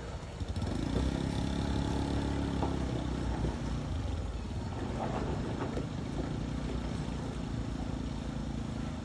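Minibus engine running under load as it climbs a slippery, muddy dirt slope: a steady low engine drone.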